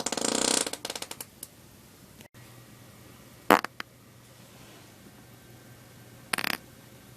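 Loud farts. One long fart breaks up into a fast sputtering flutter and dies away in the first second and a half. After a pause come two short farts: a sharp one, the loudest sound, and a few seconds later a brief rough one.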